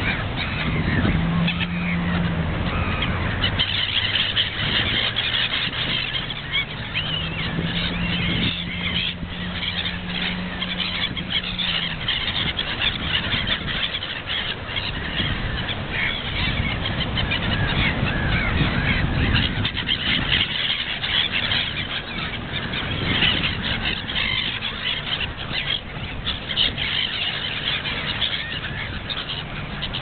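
A flock of gulls calling continuously, many high cries overlapping into a dense chatter.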